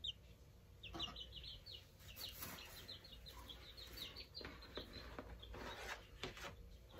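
Young chicks peeping faintly: a quick series of short, high, falling peeps, with light rustling from the chicks being handled.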